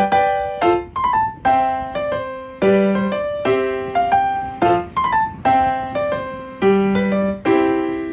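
Background piano music: a slow, gentle tune of struck chords and single notes, each fading after it is played.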